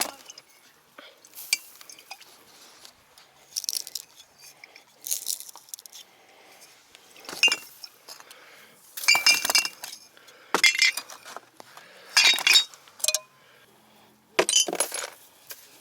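Glass bottles and broken glass clinking against one another in about ten separate clatters at uneven intervals, some ringing briefly.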